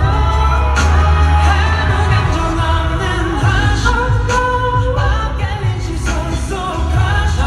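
Live pop song performance: a male singer singing over a backing track with a strong, steady bass.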